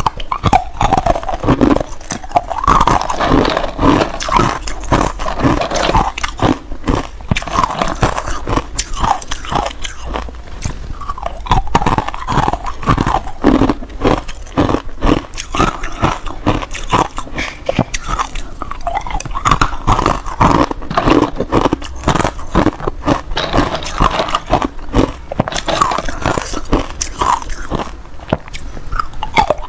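Hard ice chunks coated in matcha powder being bitten and chewed close to a clip-on microphone: a loud, continuous run of sharp, rapid crunches.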